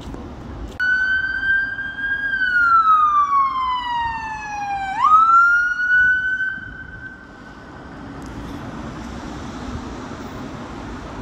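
Emergency vehicle siren. It starts suddenly on a high note, falls slowly over about three seconds, snaps back up, and fades out about seven seconds in. Steady traffic noise is left after it.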